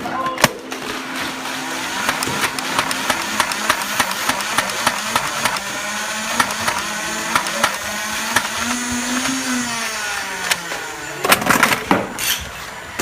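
A small motor whirring, its whine gliding up and down in pitch, with many rapid sharp clicks over it; a louder cluster of clicks comes near the end.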